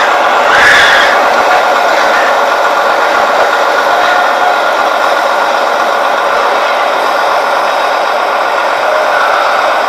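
Many pigs squealing and screaming together in a loud, continuous din, with a louder shriek about a second in: distress screams of pigs being forced off a livestock truck into a slaughterhouse.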